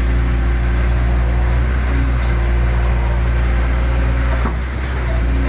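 Excavator's diesel engine running steadily at a constant speed, a deep even drone, with a brief dip in loudness about four and a half seconds in.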